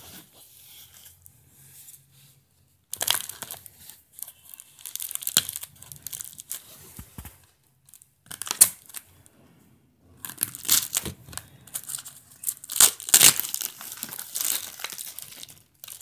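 Plastic shrink wrap being torn and peeled off a small cardboard box, crinkling and crackling in irregular bursts that grow busier and louder in the second half.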